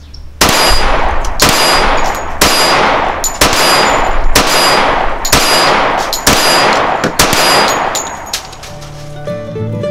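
A Springfield Armory 1911 Garrison Commander-length .45 ACP semi-auto pistol fired about eight times in slow, steady succession, roughly one shot a second. Each report rings off into a short echo. String-band music comes in near the end.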